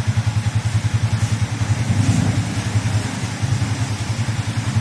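Yamaha MT-15's single-cylinder motorcycle engine idling with a steady, rapid low pulse, swelling slightly about two seconds in.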